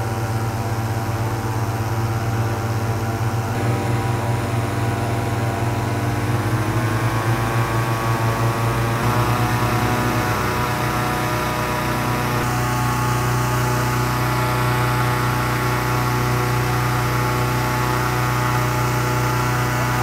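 Petrol-engine inflator fan running steadily as it blows cold air into a hot-air balloon envelope. This is the cold-inflation stage, before the burner is lit. Its engine speed rises between about 6 and 9 seconds in, then holds.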